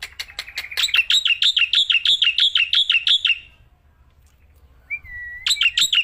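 Black-winged myna (jalak putih) singing in full song: a fast run of repeated rising-and-falling chip notes, about six a second, that stops about three and a half seconds in. After a short pause comes a single whistled note sliding down, then another fast run of chips begins near the end.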